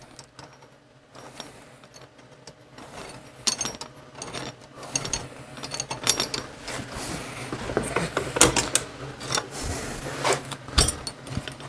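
Metal clicking and scraping as the threaded bearing-installer tool is unscrewed by hand and pulled out of a Harley-Davidson wheel hub. The clicks grow busier from about three seconds in.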